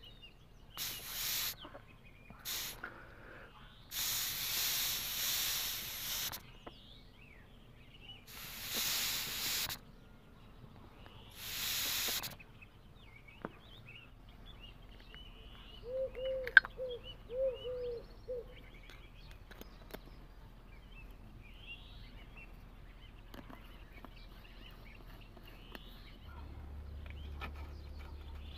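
Four short hissing blasts of pressurised air or spray, the longest about two seconds. About halfway through, a bird chirps a few times.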